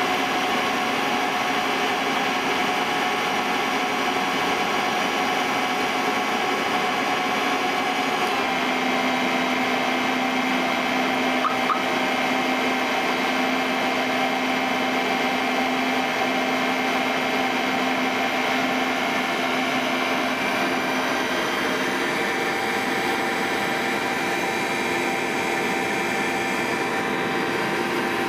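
Electric motor belt-driving a generator, running with a steady mechanical whine and hum. Its tones shift slightly twice: about a third of the way in and again about three-quarters of the way through.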